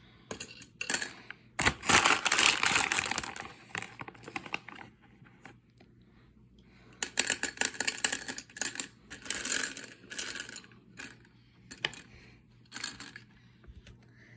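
Gumballs poured into a gumball machine, clattering and rattling against one another in several bursts with short pauses between.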